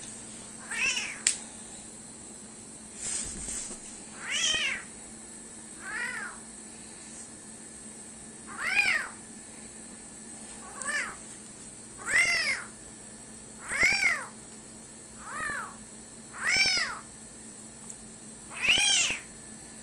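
A small kitten mewing over and over: about eleven short, high-pitched mews, each rising and then falling in pitch, one every second or two.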